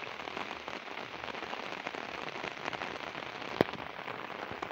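Monsoon rain falling steadily on waterlogged fields, a dense patter of drops. A single sharp click sounds a little past halfway.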